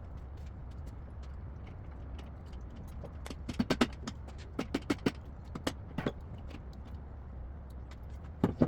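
Clicks and knocks of hand tools and engine parts being handled during a rotary engine teardown. They come in a cluster from about three to six seconds in and again twice near the end, over a steady low hum.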